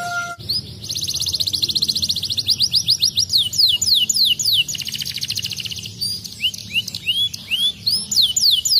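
Domestic canary singing: a fast rolling trill, then slower downward-sweeping notes and a run of rising whistled notes, going back into a rapid trill near the end.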